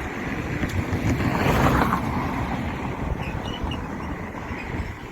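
A vehicle passing on the road, its rush of tyre and engine noise swelling to a peak about two seconds in and then fading, with wind buffeting the microphone throughout.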